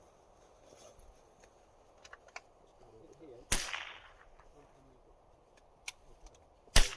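Two .22 LR rifle shots, one about halfway through and one near the end, each a sharp crack with a short tail, with a few light clicks between them.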